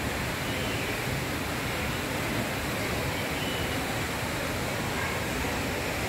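Steady rushing ambient noise under a large glass dome, even throughout with no distinct events.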